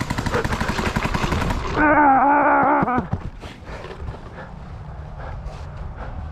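Paintball marker firing rapidly for a couple of seconds, then a long shout, then scattered quieter shots from other paintball markers.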